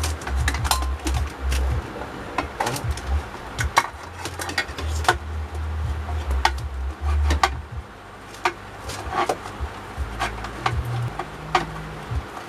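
Irregular clicks and knocks of kit items being handled and set down on a table, with a low rumble that stops a little past halfway.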